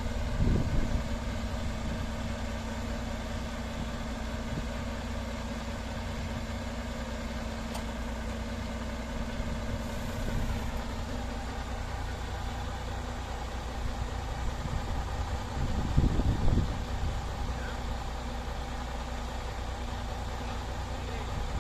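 Heavy diesel engine idling steadily, its tone shifting slightly about ten seconds in. Brief low rumbles come through just after the start and again around sixteen seconds.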